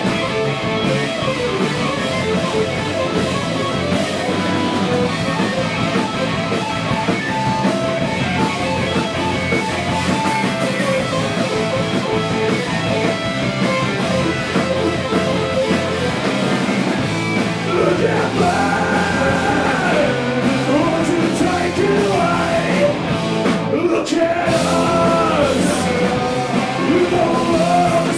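Rock band playing live with electric guitars, bass guitar and drums, first in an instrumental stretch of sustained guitar notes. A male lead vocal comes in about two-thirds of the way through.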